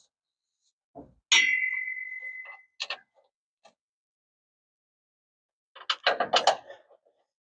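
Metal on metal under a truck: one sharp clang with a clear ring that fades over about a second, then a few small clicks, and near the end a quick run of metallic clicks and clinks from hand tools and loose parts.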